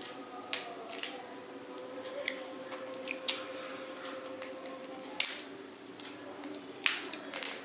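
Fingers pulling apart a cooked prawn in a thick curry gravy: wet, sticky squishes with a few sharp crackles of shell breaking.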